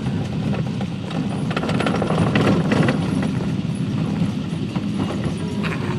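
Car cabin on a rough dirt road: a steady rumble of tyres and suspension, with a loose steel ball clattering against an Altoid tin, a racket of rapid rattles that is busiest a couple of seconds in.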